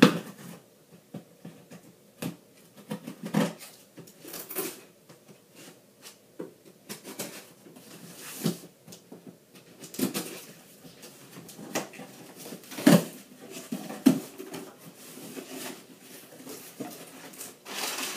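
Cardboard shipping box being cut open and handled: irregular scrapes, rustles and taps on the cardboard, with the box flaps pulled open near the end. The loudest knock comes about two-thirds of the way through.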